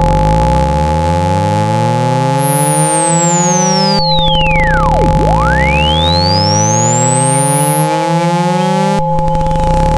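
Speaker-cleaning test tones for driving water out of a phone speaker. Steady low and mid tones are layered with low tones that repeatedly glide upward. One high whistle sweeps down from very high to very low over about four seconds, then sweeps back up over the next four.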